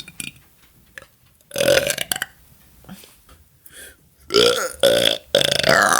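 A woman belching on purpose: one burp about a second and a half in, then three loud burps in quick succession over the last two seconds.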